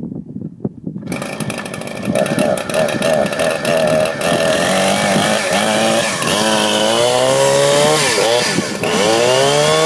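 Two-stroke chainsaw starting up about a second in and running loudly, its revs rising twice in the second half.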